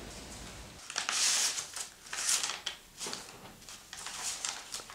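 Four or five short bursts of dry rustling, with quiet gaps between them.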